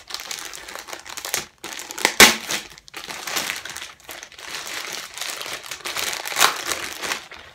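Glossy black plastic shipping mailer crinkling and rustling as it is handled and pulled open, with a sharp, loud crackle about two seconds in.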